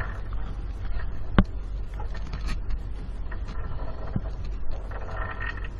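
Steady low rumble of the fishing boat's engine, with scattered small clicks and knocks from fishing gear being handled and one sharp tick about a second and a half in.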